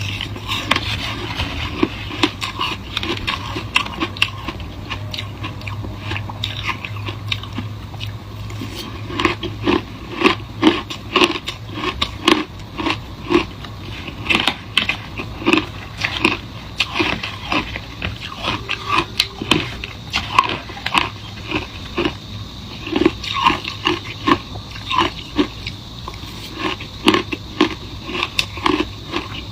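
Someone biting and chewing passion fruit ice close to the microphone: a long run of sharp, crunchy bites, coming faster and louder about a third of the way in.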